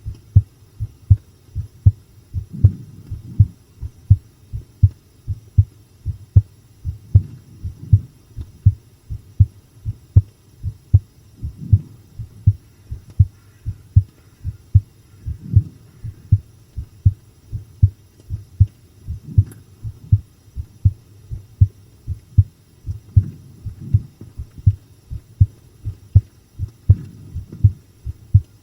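Human heartbeat recorded close up: an even run of strong, low thumps, about two a second.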